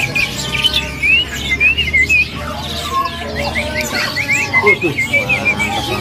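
Orange-headed thrush (anis merah) singing in its 'teler' style: two quick runs of short rising chirps, the first about a second in and the second near the end.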